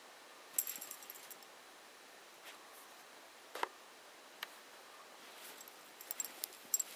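Light metallic jingling and clicking from a Wolfsspitz's harness and leash clip as the dog digs and moves about in snow. There are two short clusters, one about half a second in and one near the end, with a few single clicks between.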